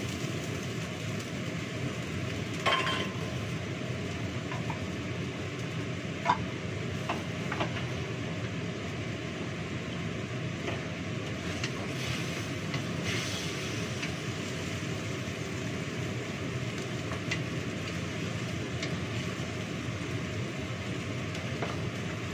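Pork steaks frying in a pan, a steady noise throughout, while a spatula stirs them and clinks now and then against the metal pan. The loudest clank rings briefly about three seconds in, with another sharp clink about six seconds in.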